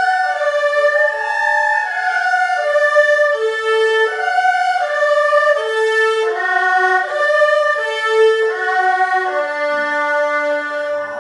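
Erhu played with the bow: a broken-chord sequence exercise of short separate notes that step up and down through repeating arpeggio patterns, ending on a longer low note.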